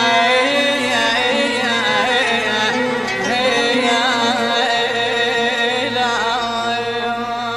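Middle Eastern music: a continuous, ornamented melodic line that bends and wavers in pitch over a steady accompaniment, heard between the sung verses.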